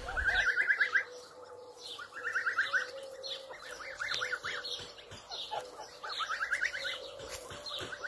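Young domestic geese calling: short runs of rapid, high peeping notes, repeated several times.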